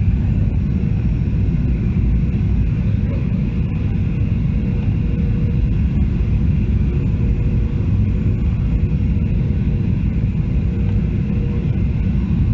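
Cabin noise of a Boeing 737-800 on approach, heard from a window seat over the wing: a steady low rumble of airflow and its CFM56-7B engines, with a faint steady hum above it.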